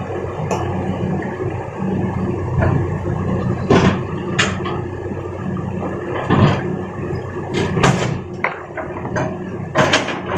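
Excavator's diesel engine running steadily, with sharp knocks and clanks every second or two as rock is loaded.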